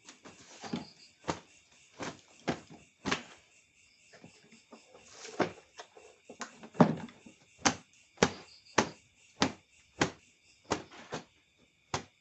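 A series of irregular sharp knocks and clacks, about one or two a second, over a faint steady high-pitched drone.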